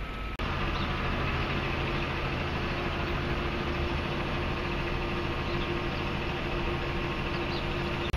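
Steady city street noise dominated by the drone of an idling engine, with a constant hum and a held tone; the sound drops out briefly about half a second in, then resumes evenly.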